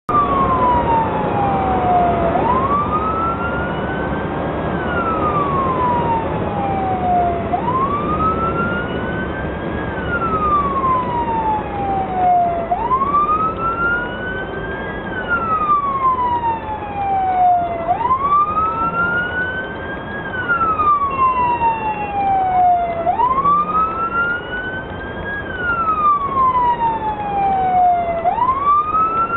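Police patrol car siren in wail mode, its pitch slowly rising and falling about once every five seconds, over steady road and engine noise.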